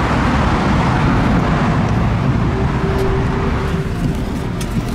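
Steady, loud traffic noise from the nearby freeway. A steady hum joins about halfway through, and a few light clicks come near the end.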